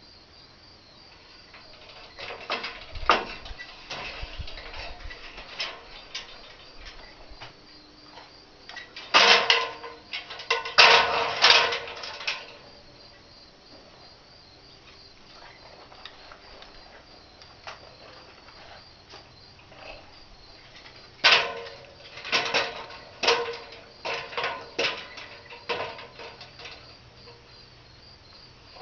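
Three bursts of knocking and clattering, the loudest about nine to twelve seconds in, over a steady chirping of crickets.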